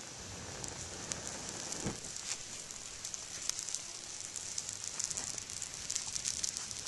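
A dry-grass tinder bundle, lit from a bow drill ember, catching and burning in open flame: a steady hiss with small crackles that grow denser toward the end.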